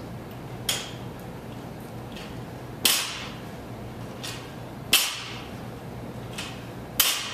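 A 75-pound barbell with rubber bumper plates being set down on the floor between snatch reps, one sharp strike about every two seconds, each led by a lighter knock.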